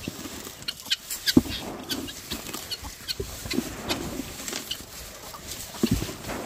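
A flock of chickens clucking and chirping, many short calls overlapping. Two sharp knocks stand out, about a second and a half in and near the end.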